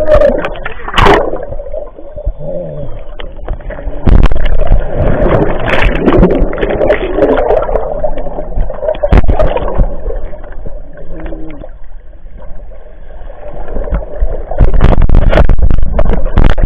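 Seawater splashing and gurgling right at the microphone, with irregular loud thumps and a constant low rumble of water buffeting it.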